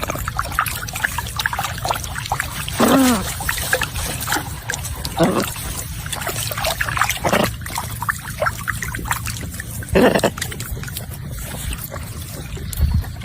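Macaw parrot calling four times, short harsh calls about two to three seconds apart, the first falling in pitch, over a steady low background noise.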